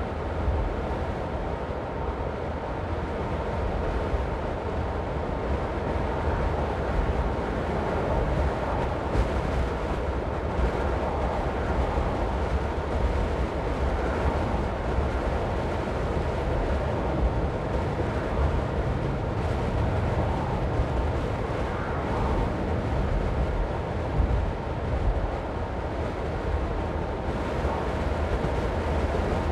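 Car driving along at a steady speed: a continuous rumble of tyres and engine with a rushing noise over it, heaviest in the low end and without a break.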